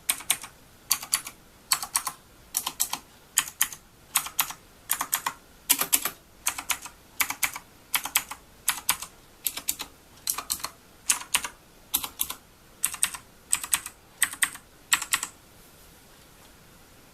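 Mechanical keyboard with clicky blue switches being typed on in quick rhythmic bursts of several sharp clicks, a burst a little under once a second. The typing stops about two seconds before the end.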